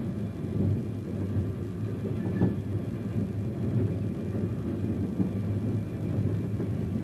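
Diesel-hauled passenger train running: a steady low rumble of locomotive and wheels on the track, with one brief sharper peak about two and a half seconds in.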